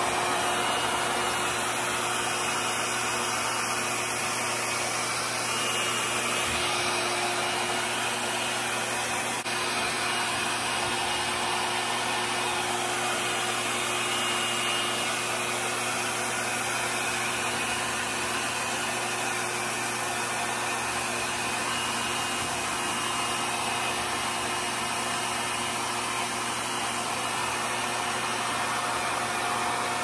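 RevAir reverse-air hair dryer running steadily: a continuous rush of air with a steady hum as its motor pulls air through the hose and wand, drawing a section of hair in to dry it.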